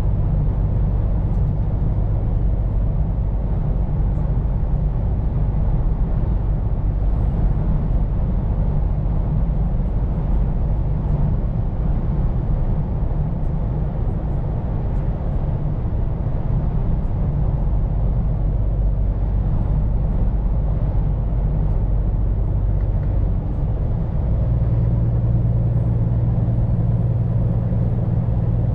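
Scania P410 truck's diesel engine running steadily while driving, with road and tyre noise. Near the end a low engine hum grows stronger.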